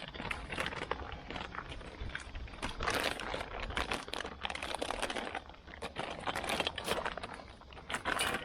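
Packaging being opened and handled: irregular rustling and crinkling with many small clicks and knocks as a new gate latch and its screws and key are taken out.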